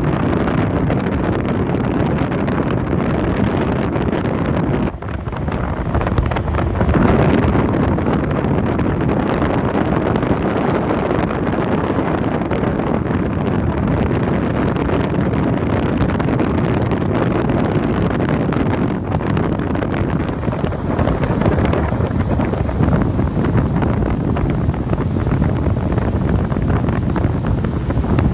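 Wind rushing over the microphone on a moving boat, a steady loud noise with a brief dip about five seconds in.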